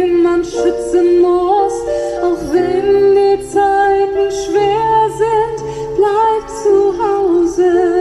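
Pop music with a female singer and a beat, played loud over a DJ's PA loudspeakers.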